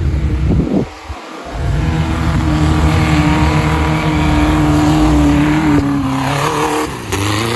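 Off-road vehicle engine working hard under load. It picks up about two seconds in, holds a high steady pitch, then drops off with a brief rev near the end.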